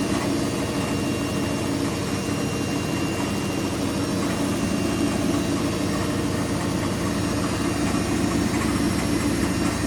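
Washing machine spinning at speed, a steady machine hum that holds one pitch throughout.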